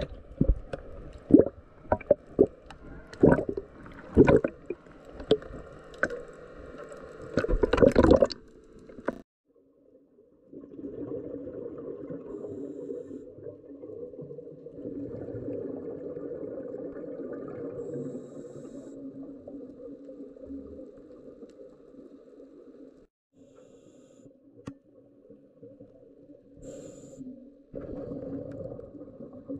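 Water splashing and slapping against the camera at the surface for about the first eight seconds. After a short silence comes a steady underwater bubbling and gurgling, the sound of a scuba diver's exhaled breath bubbling from the regulator, which pauses briefly now and then.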